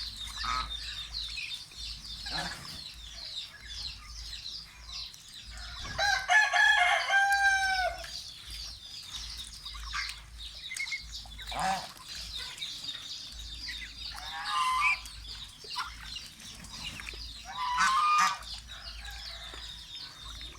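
Chickens clucking, with a rooster giving one long crow about six seconds in that falls in pitch at its end, and shorter calls around 15 and 18 seconds.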